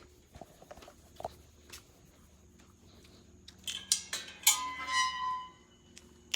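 Two male cats yowling at each other in a standoff: loud, high-pitched yowls for about two seconds, starting about three and a half seconds in.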